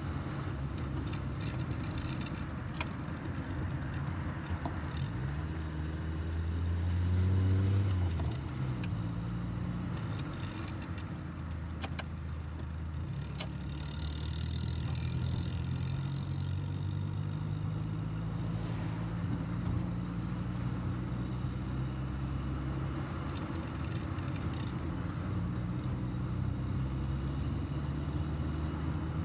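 Carburetted four-cylinder engine of a 1984 VW Golf Mk2 GL, heard from inside the cabin while driving. The engine note climbs as the car accelerates about five to eight seconds in, drops at a gear change, then runs evenly at steady speed, with a few sharp clicks along the way.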